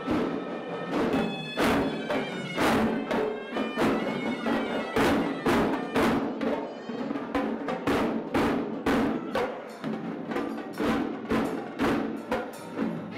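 Traditional Sri Lankan temple drumming: davul barrel drums beaten with sharp, rapid strikes in a driving rhythm, with a shrill reed pipe playing a held melody over them.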